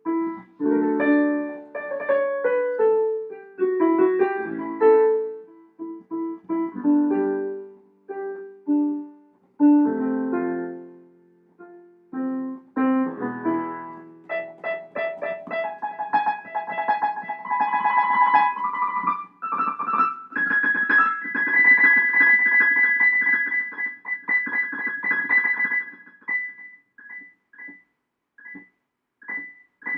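Solo piano music. Chords and melody sit in the middle register for the first half. Then rapid repeated notes climb into the high register and thin out to a few high notes near the end.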